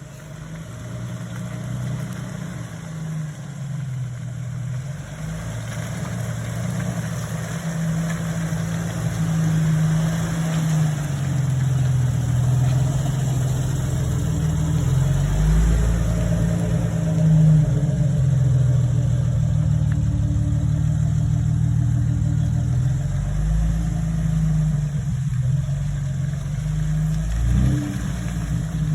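Jeep TJ engine running under load, its revs rising and falling as it works through mud. It grows louder over the first ten seconds or so, then holds.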